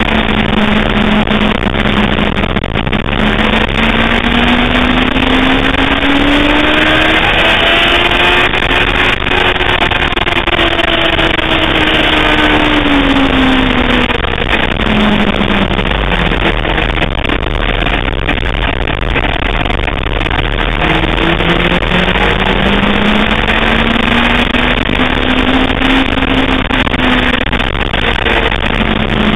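Sportbike engine running hard on track under heavy rushing wind noise. Its pitch climbs steadily for several seconds, falls back around the middle, drops low, then climbs and falls again near the end.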